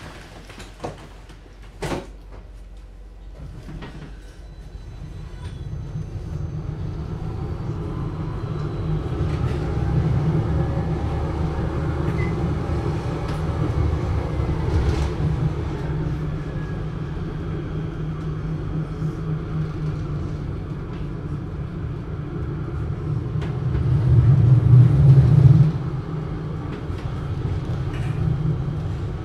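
Mainz GT6M tram pulling away and running, muffled: two sharp clicks in the first two seconds, then a low rumble that builds from about four seconds in as it gathers speed, with faint rising tones from the drive, and a louder rumbling stretch near the end.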